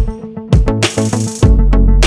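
Background music with a steady beat: drum hits, a deep bass line and a cymbal crash.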